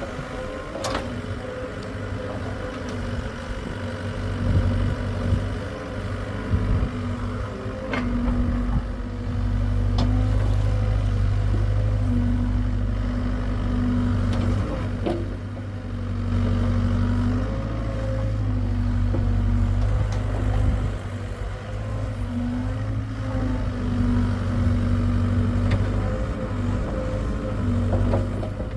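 Hitachi excavator's diesel engine running under load, its low rumble swelling and easing as it works, with a whine that comes and goes and occasional sharp clanks.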